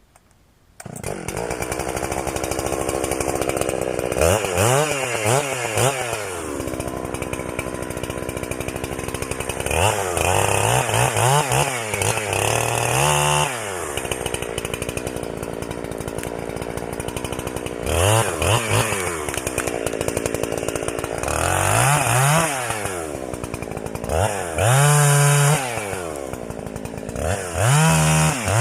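Chainsaw starting up abruptly about a second in, then running and revving up and down about six times as it cuts small trees.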